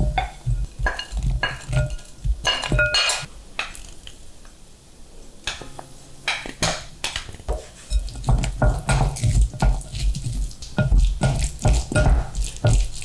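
Wooden spatula knocking and scraping on a glass bowl as shredded chicken is pushed in, then stirring shredded chicken, onion and mayonnaise in the bowl, with dull thumps and clicks. The stirring is busiest in the last five seconds.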